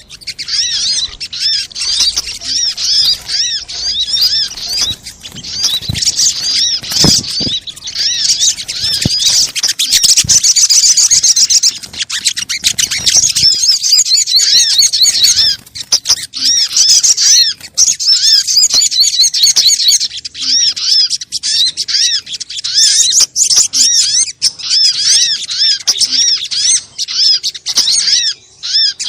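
Sogok ontong (sogon) bird, the brown-throated sunbird, singing a fast, continuous string of high, rapidly repeated chirping notes with brief pauses. This is a lure (pikat) recording.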